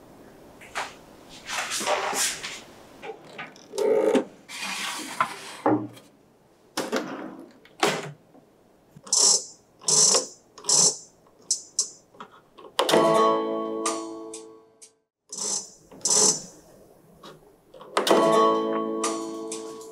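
A metal baking tray knocking and clattering as it goes into a Balmuda countertop oven, then the oven's built-in electronic sound effects as its dial is turned to set the temperature and time: quick high ticks with each turn, and a plucked, guitar-like chord about 13 seconds in and again near the end.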